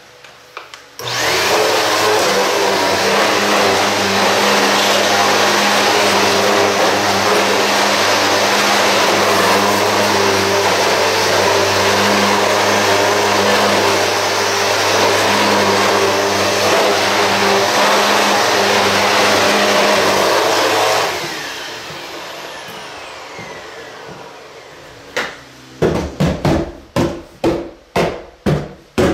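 Upright vacuum cleaner switched on and running steadily with a motor hum for about twenty seconds, then switched off and winding down. Near the end, a quick run of sharp thuds, two or three a second.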